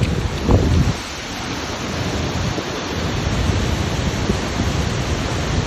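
Steady roar of a large waterfall, with a brief louder low rumble about half a second in.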